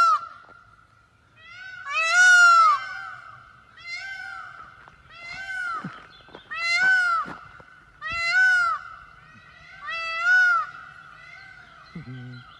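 Peacock calling over and over: a loud call at the very start, then about seven more calls a second or two apart, each rising then falling in pitch. A faint steady high tone runs underneath.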